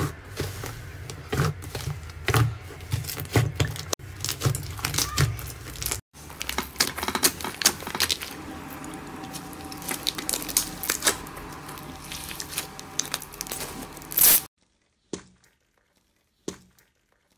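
Slime worked by hand, giving a dense run of sticky crackles, tearing and small pops. The first part comes from a white fluffy slime being pulled and folded, and after a cut at about six seconds from a pink slime packed with jelly cubes being pressed. It ends in a louder crackle, then goes nearly quiet apart from a few short pops as a glossy slime is squeezed.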